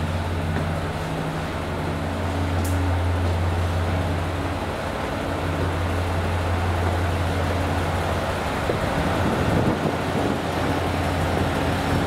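Diesel railcar engine idling: a steady low hum with faint overtones that thins about nine seconds in.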